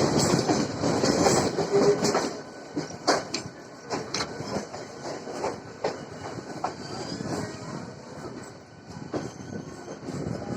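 Mumbai suburban electric multiple-unit local train running, heard from inside the coach: a steady rumble with irregular sharp clicks of the wheels over rail joints. It is louder for the first two seconds or so, then quieter.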